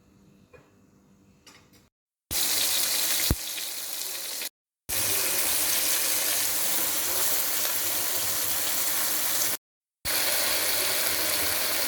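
Water running steadily from a kitchen tap, heard in three stretches cut apart by abrupt gaps, with a single sharp knock early in the first stretch.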